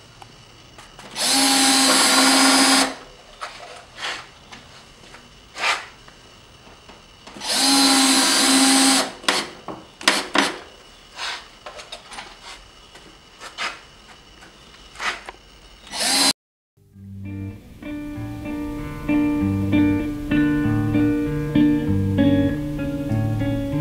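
Power drill running in two bursts of about two seconds each, with a steady motor pitch, typical of driving screws into wood for screw art. Scattered clicks and taps fall between the bursts. After a sudden short silence about two-thirds of the way through, guitar music begins.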